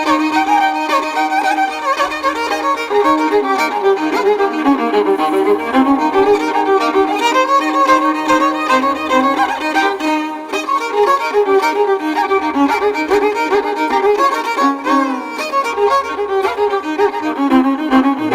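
Background music led by a violin or fiddle playing a melody over a steady drone.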